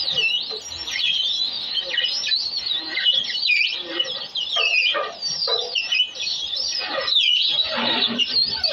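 A flock of small birds chirping and chattering, many calls overlapping in a busy, continuous chorus.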